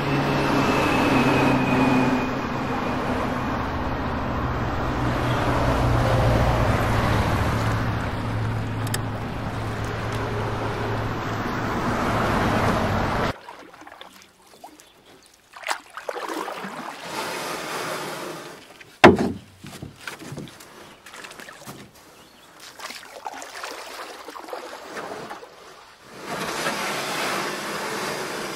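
Road traffic: a steady wash of car engines and tyre noise with a low engine hum, which cuts off abruptly about 13 seconds in. Then quieter, scattered noises follow, with one sharp knock past the middle and a short swell of noise near the end.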